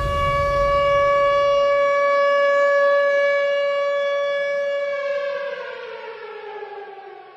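Air-raid siren sounding an alert, holding one steady tone, then falling in pitch and fading away from about five seconds in as it winds down.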